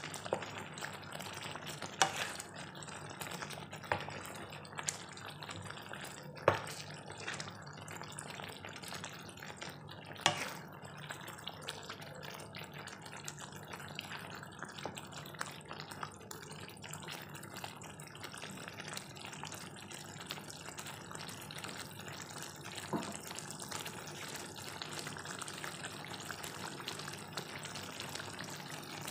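Thick sambal sauce simmering and sizzling in a pan with fried boiled eggs. A wooden spatula stirs and knocks against the pan a handful of times in the first ten seconds, the loudest sounds; after that the simmering goes on steadily, with one light knock later.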